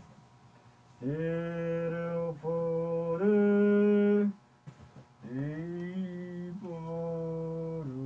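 A low voice chanting in long held, mantra-like notes, about five of them with short breaks, stepping between a few pitches; the loudest and highest note comes a little after 3 seconds in.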